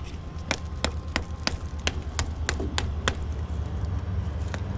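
Sharp clicks, about three a second and then slowing to a couple near the end, over a steady low rumble of wind on the microphone, as a magnet-fishing rope is hauled up with a catch on the magnet.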